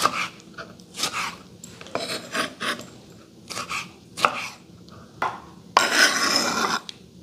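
Chef's knife chopping soft fruit (jackfruit and pineapple pieces) on a wooden cutting board, in separate strokes about a second apart. Near the end comes a longer scraping sound as the blade sweeps the pieces off the board.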